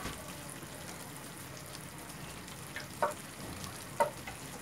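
Chicken curry in coconut-milk sauce simmering in a stainless steel pan on a gas burner: a steady low sizzle, with two sharp pops about three and four seconds in.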